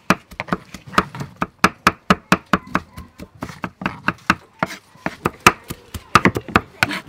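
A cleaver chopping food on a wooden chopping block: quick, sharp knocks, several a second, in an uneven rhythm.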